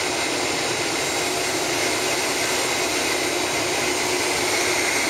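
Steady cabin noise inside a Boeing 767-400 as it taxis with its jet engines at idle: an even rush of engine and air noise with a faint steady whine.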